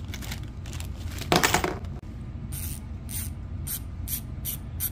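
Pawls of a bicycle rear hub's freehub clicking as the freshly fitted Shimano HG driver is turned by hand: a slow series of sharp ticks, about two a second, starting about halfway through. A short plastic-bag rustle comes just before, about a second in.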